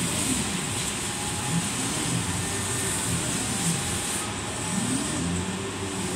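A 5-axis CNC router milling a block of wood into a ball. The spindle runs steadily with a high whine over the noise of the cutter in the wood, and a low hum rises and falls in pitch again and again as the head moves.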